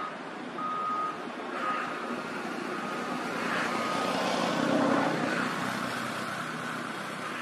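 Manitou telehandler's diesel engine running under work, with a reversing alarm beeping about once a second; the machine gets louder for a stretch about five seconds in.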